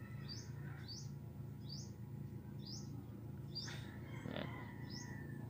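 A small bird chirping over and over, each call a short high chirp rising in pitch, repeated at an even pace of roughly one a second, over a steady low background hum.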